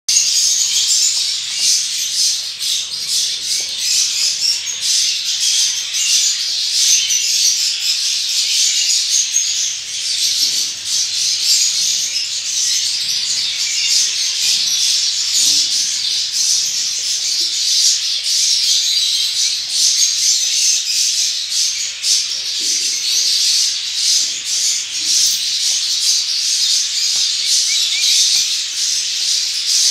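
Several emu chicks peeping: a continuous chorus of high, overlapping chirps.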